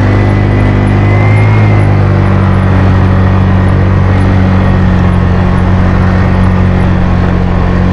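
Suzuki Skydrive CVT scooter's engine running steadily under load up a climb while carrying two riders, with heavy wind and road noise over the hum.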